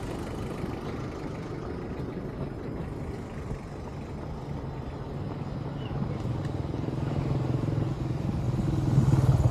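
Traffic noise with a motor vehicle's engine running. Its steady hum grows louder over the last few seconds as it draws nearer.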